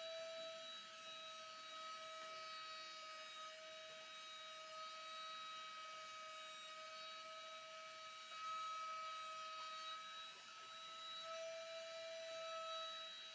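A steady hum with a faint hiss, like a small motor or appliance running, unchanging throughout; no distinct handling or clamping sounds stand out.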